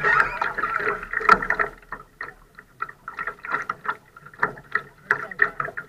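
Water slapping and splashing against a Laser sailing dinghy's hull, with irregular small knocks, louder for the first couple of seconds and quieter after.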